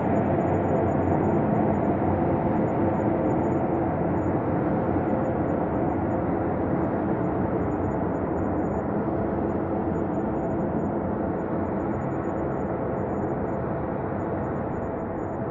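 Ambient space drone: a dense, steady, dark hum with a few faint held tones underneath, easing slightly quieter toward the end.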